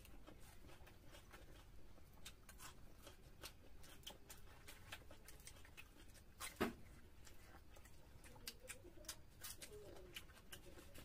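Quiet eating sounds: mouth smacks, chewing and fingers tearing puffed luchi, heard as scattered soft clicks, with one sharper click a little past the middle.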